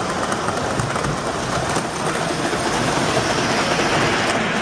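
Model diesel locomotives and cars rolling along three-rail O-gauge track, with steady running noise and faint irregular clicks from the wheels on the rails.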